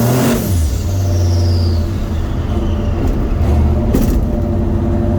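Turbocharged truck engine revving up, then easing off about a third of a second in. A high whistle from the Garrett G42 turbocharger falls away over the next second or two as it spools down. The engine then runs on steadily, with one short sharp crack about four seconds in.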